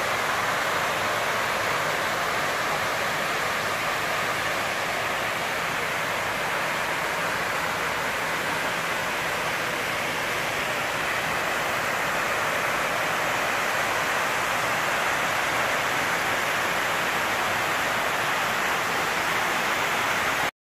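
Water of the 9/11 Memorial reflecting pool pouring down the pool's walls and into the central void: a steady, even rush of falling water that cuts off suddenly near the end.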